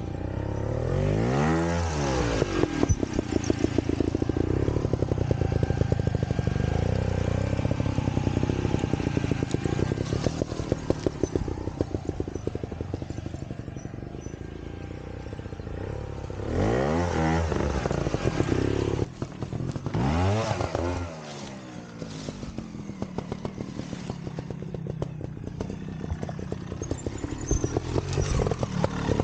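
Trials motorcycle engine running at low revs with an uneven, popping beat. The throttle is blipped sharply three times: once near the start and twice about two-thirds of the way through, each time the pitch rising quickly and falling back.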